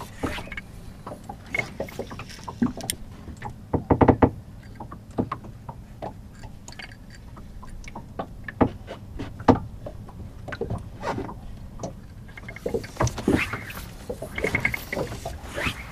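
Water lapping and slapping against the hull of a small wooden rowing boat, with irregular knocks from the boat and its gear while the angler stands fly casting.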